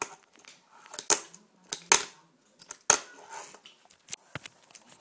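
Tech Deck fingerboard being flicked and landed under the fingers: a string of sharp, irregular clacks of the small board and its wheels hitting the surface.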